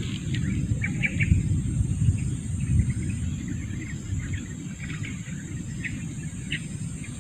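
Outdoor pond-side ambience: a steady high insect drone, with short scattered chirps over a fluctuating low rumble.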